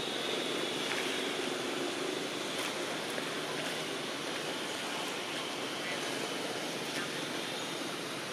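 Steady outdoor background noise: an even hiss with a faint, steady high-pitched whine over it and a few faint ticks.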